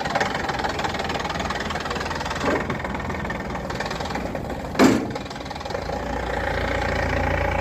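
Heavy farm-machine engine running just after starting, with a sharp metallic clank nearly five seconds in and a smaller knock earlier. The engine grows deeper and louder near the end.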